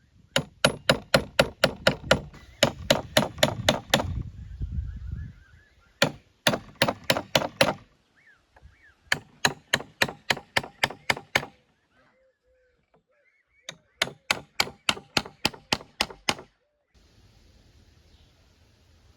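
Knife chopping on a cutting board in quick, even runs of strokes, about four or five a second, in four bursts with short pauses between. Birds chirp faintly in the pauses.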